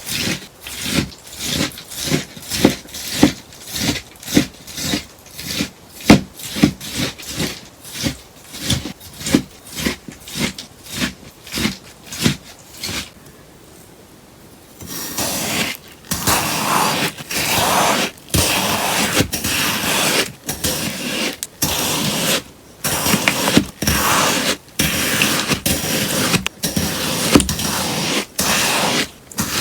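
A sponge being cut with a crisp, repeated snipping sound, about two or three cuts a second. There is a short lull about 13 seconds in, then longer, denser cutting strokes follow.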